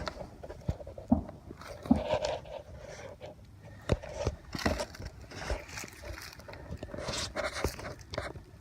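Wooden beehive frames and box being pried and scraped at: irregular knocks, clicks and scraping as frames stuck fast in the box resist coming loose.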